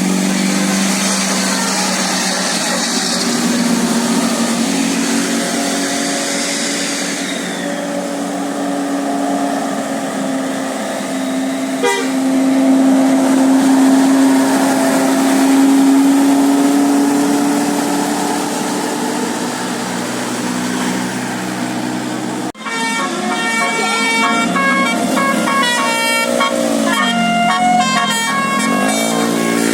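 A tour bus's basuri musical horn sounding long held tones, then, after an abrupt cut about 22 seconds in, playing a quick tune of short stepped notes with sliding pitches near the end.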